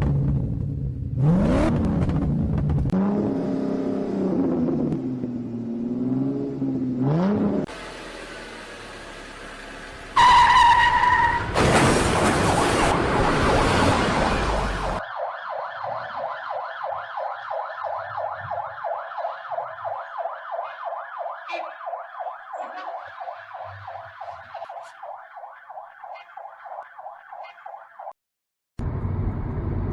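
A string of road-vehicle and warning sounds. First comes a wavering tone that rises and falls. About ten seconds in there is a short steady horn-like blast and a burst of loud noise. Then a fast-pulsing electronic siren tone fades away over about thirteen seconds and cuts off suddenly.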